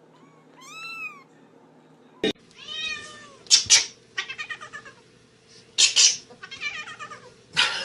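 Domestic cat meowing repeatedly: a string of calls that rise and fall in pitch, some of them loud and harsh.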